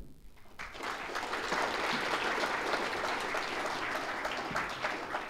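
Audience applauding at the end of a talk, the clapping starting about half a second in and holding steady.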